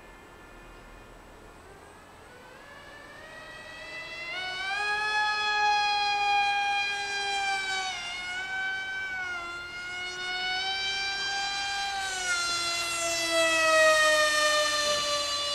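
Z84 RC flying wing's electric motor and propeller whining in flight. A pitched whine fades in about two seconds in, grows loud, wavers up and down in pitch, and slides lower near the end.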